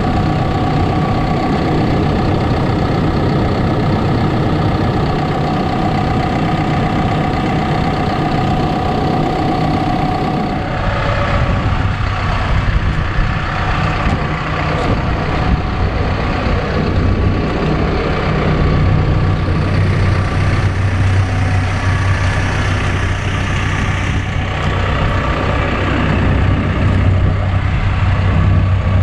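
Caterpillar 420F backhoe loader's diesel engine running steadily. A steady high whine drops out about ten seconds in, after which occasional knocks and clatter sound over the engine.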